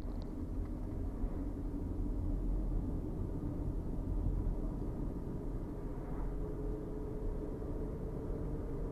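Steady road and engine rumble inside a moving van, with wind noise coming in through open windows.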